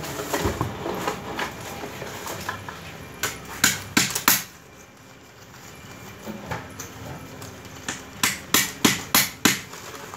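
Hammer strikes: four sharp knocks about three to four seconds in, then a run of five evenly spaced knocks, about three a second, near the end, with quieter handling noise between.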